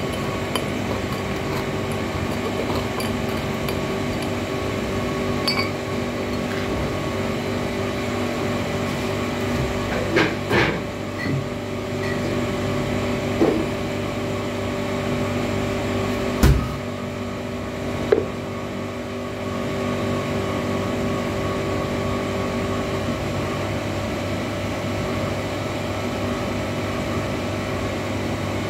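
Steady electrical hum of a running appliance, holding several even tones. A handful of short knocks break in, the sharpest about sixteen seconds in.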